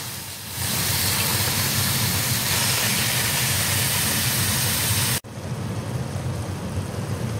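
Ground nilgai meat sizzling in hot canola oil in a stockpot as it is stirred, a loud steady hiss. It breaks off abruptly about five seconds in, and a softer sizzle follows as the browning meat steams in the pot.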